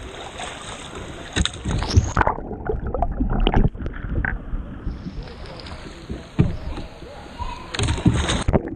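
Water splashing and gurgling around a sea kayak as it capsizes and is rolled back upright with sweeps of the paddle. The sound turns muffled for stretches and splashes loudly near the end as the boat comes up.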